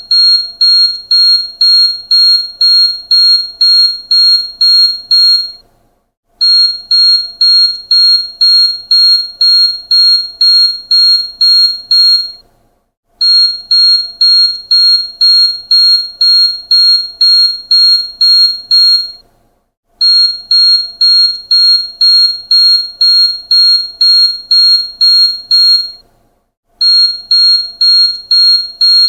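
Car seat belt warning alarm: rapid high-pitched beeping, about two beeps a second, in runs of about six seconds with short pauses between. It is the alert for an unfastened seat belt.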